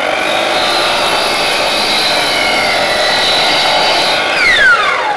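Hitachi miter saw's motor running at full speed with a high whine while its blade cuts a teak board, the pitch sagging slightly under the load. About four seconds in it is switched off and the whine falls steeply as the blade spins down.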